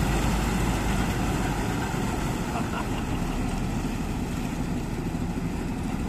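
Self-propelled corn harvester running as it drives off through the field: a steady engine and machinery noise, heaviest in the low end, easing slightly as it moves away.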